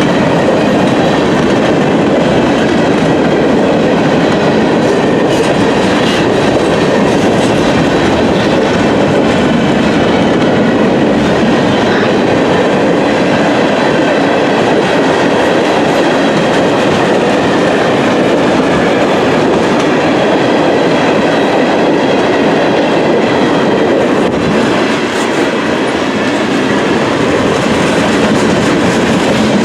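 A train rolling past, with the loud, steady noise of steel wheels running on the rails for the whole half minute.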